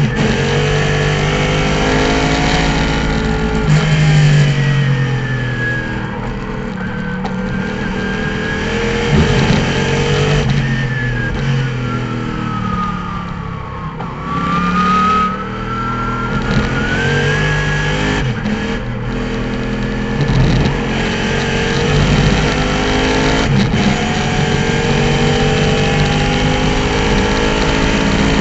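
Trans Am TA2 race car's V8 engine, heard from inside the cockpit, running hard through the gears. About halfway through it drops to its lowest revs under braking and downshifts for a slow corner, then climbs again under full throttle through upshifts to high revs.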